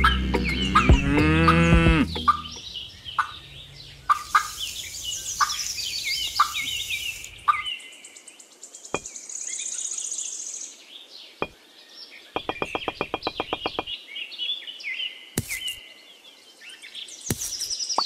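Farm-animal calls, clucking fowl and cattle lowing, mixed with short chirps in quick succession, and a rapid run of clicks about twelve seconds in.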